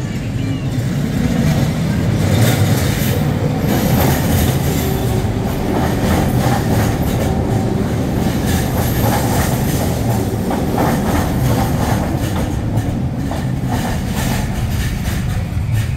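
SkyTrain train running past the platform: a steady rumble of wheels on the elevated guideway, building over the first couple of seconds, with many quick clicks of the wheels over the rails.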